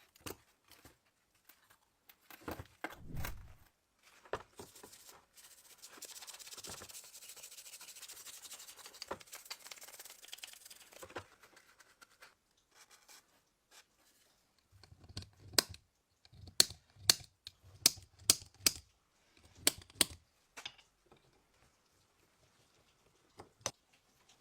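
Hand work on small metal parts: scattered light clicks and taps, then a scratchy hiss lasting about five seconds, then a quick run of about eight sharp metallic clicks.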